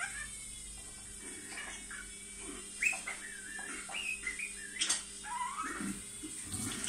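Budgerigar warbling: a run of short chirps, clicks and wavering squeaky whistled notes, over a steady background hum.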